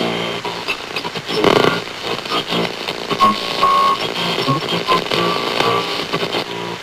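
Electronic synthesizer score: a sustained droning chord with short beeping tones and crackling, static-like noise, loudest about a second and a half in.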